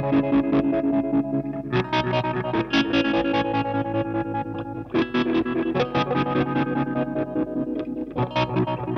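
Intro music: an electric guitar played through a distortion effect, picking notes quickly in a riff that changes chord about every three seconds.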